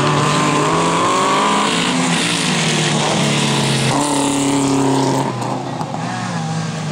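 2000cc stock car cross race cars running hard past the track edge, several engines at once, their pitch rising and falling with throttle and gear changes. The sound eases off briefly about five and a half seconds in.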